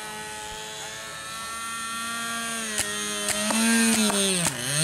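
Small electric motor and propeller of a radio-controlled pizza-box flyer running with a steady hum that grows louder, with a few sharp clicks. Near the end its pitch drops sharply and climbs straight back up.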